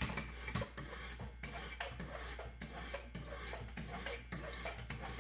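Sharpening stones of a Wicked Edge Gen 4 Pro guided sharpener stroked along a steel knife's bevel, a steady run of strokes about two a second, refining the edge.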